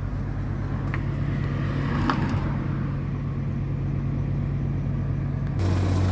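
Steady engine hum of a truck running its Carrier Xarios 500 refrigeration system, with a couple of faint clicks. About five and a half seconds in, the sound changes abruptly to a stronger, lower drone.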